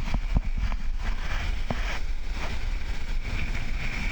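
Wind blowing on the phone's microphone, a steady rumbling rush with a few soft thumps in the first couple of seconds, over the wash of the surf.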